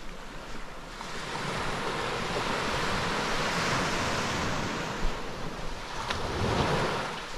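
Ocean surf: a wave swelling and washing in, building about a second in and dying away near the end.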